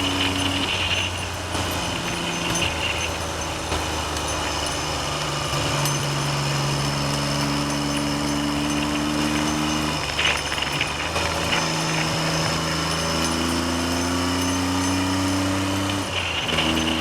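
Classic Triumph Trident three-cylinder motorcycle engine pulling under way, its note climbing steadily and dropping sharply at gear changes about ten seconds in and near the end. Wind noise on the microphone runs underneath.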